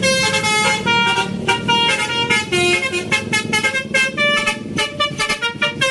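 Horn sound of a green Tayo toy bus: a melodic multi-tone horn playing a quick run of short notes that change in pitch, over a steady low drone.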